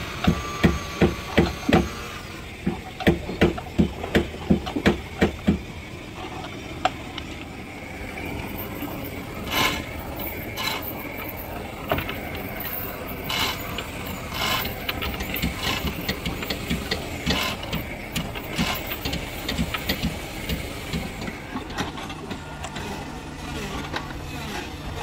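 Hammering in a wooden boat repair: two runs of evenly spaced blows, about three a second, over the first five seconds, then scattered single knocks. A low steady hum starts near the end.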